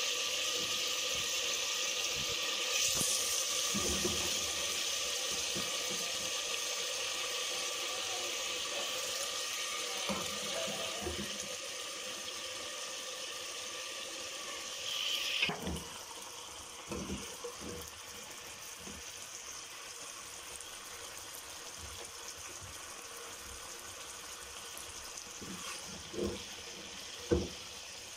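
Chicken pieces sizzling as they are spooned into a preheated clay handi with a little oil in it, with a metal spoon knocking against the pots now and then. The sizzle drops sharply about halfway through and goes on more faintly, and a sharp knock near the end is the loudest sound.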